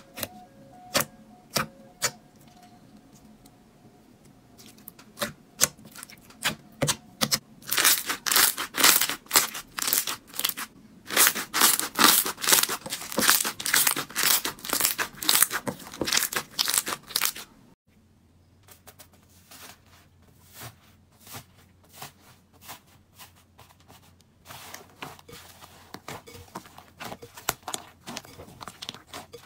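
Slime being worked by hand, giving sharp crackling and popping clicks. The clicks thicken into a dense crackle about a quarter of the way in, stop abruptly a little past halfway, then come back softer and grow busier again near the end.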